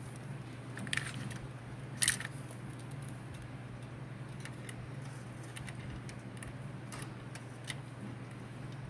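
Scattered small metal clicks and clinks, the two loudest about one and two seconds in, over a steady low hum: a screwdriver driving the screws that hold a motherboard in a PC cabinet.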